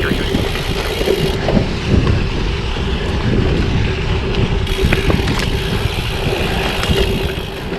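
Riding noise of a bicycle picked up by a chest-mounted GoPro: wind on the microphone and a steady rumble of tyres on the ground, with a few small clicks and rattles.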